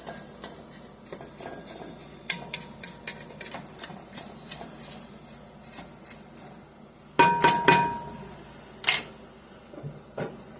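Spoon working in a pan of melting butter and sugar, with scattered light clicks and knocks. About seven seconds in comes a quick run of sharp metallic clanks with a brief ring, then one more clack.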